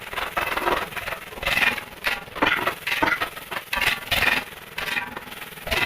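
Repeated rough scraping strokes, about three a second.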